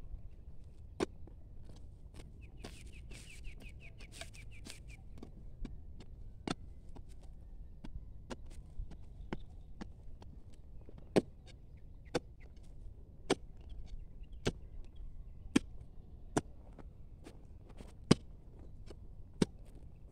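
Iron digging bar jabbed into hard, stony ground around the roots of a bidara (Indian jujube) sapling to dig it out: sharp strikes about once a second, unevenly spaced. From about three to five seconds in, a bird chirps a quick run of high repeated notes.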